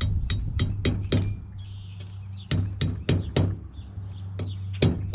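Hammer striking metal in quick, ringing taps, in runs of about four strikes at roughly three a second, while working the bearing on an excavator's hydraulic swing motor shaft.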